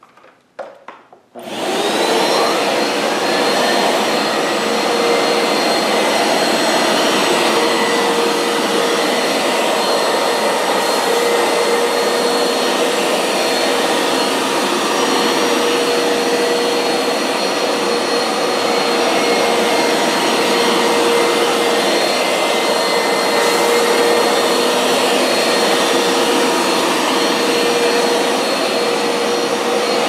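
Hoover Power Scrub Deluxe FH50150 carpet washer: a few clicks, then about a second and a half in its motor starts and spins up with a rising whine. It then runs steadily as the machine is pushed back and forth over carpet.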